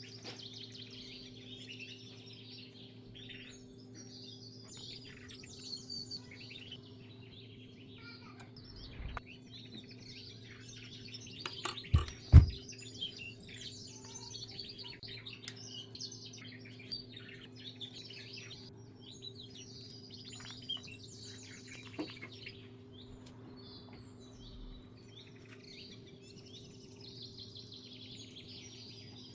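Small birds chirping and twittering continuously over a steady low hum, with two sharp knocks in quick succession about twelve seconds in.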